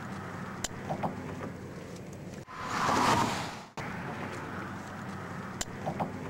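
Steady outdoor road-traffic noise, with one vehicle passing by in a swell that rises and fades about halfway through.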